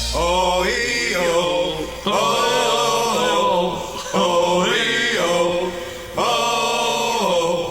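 Male voices singing a repeated wordless "oh" vocal hook in four phrases about two seconds apart, with the bass and backing dropping away about a second in, as the song's outro.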